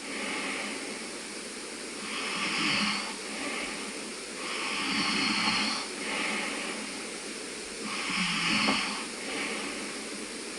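A sleeping man snoring: three snoring breaths about three seconds apart over a steady background hiss.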